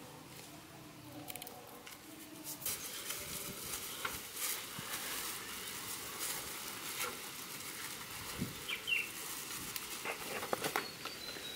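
Thin plastic bag crinkling and rustling in irregular crackles as it is handled and opened to pour out salt. A couple of brief high chirps sound about nine seconds in.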